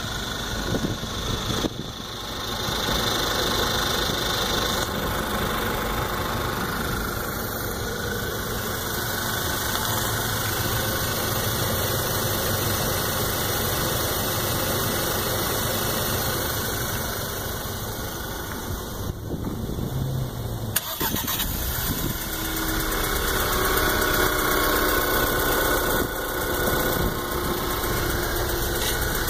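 Volkswagen GTI's 2.0-litre turbocharged four-cylinder engine running, the sound changing about 21 seconds in. The engine is listened to for a ticking from its lower part that rises with rpm, heard on a new 2014 GTI at 1,000 miles.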